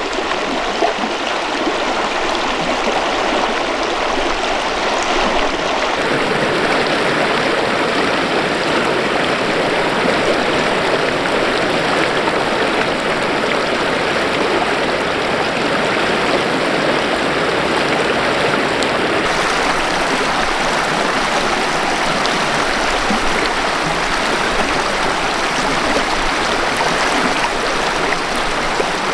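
Mountain river flowing: a steady rush of running water, its tone shifting slightly about six seconds in and again at about nineteen seconds.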